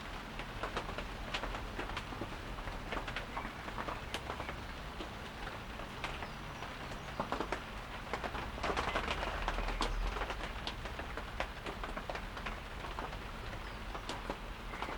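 Light rain falling, with many scattered raindrops ticking on nearby surfaces and a low steady rumble underneath.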